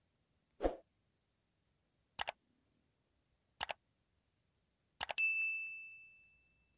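Sound effects of a like-and-subscribe button animation: a soft pop as the buttons appear, two double mouse clicks, then a click and a notification-bell ding that rings out and fades over about a second and a half.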